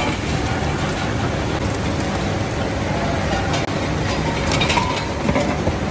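Steady mechanical din of a steel rolling mill running, with a few sharp metallic clanks as red-hot bars are handled and fed into the rolls.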